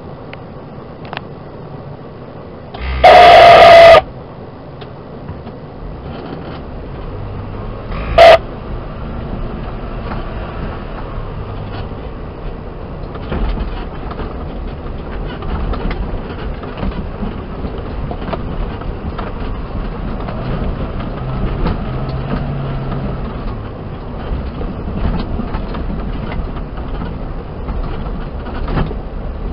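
A 4x4 crawling over a rough stony track, heard from inside: the engine runs low under constant rattles and knocks from the bumpy ride. A very loud pitched blast lasting about a second comes a few seconds in, and a short one comes about eight seconds in.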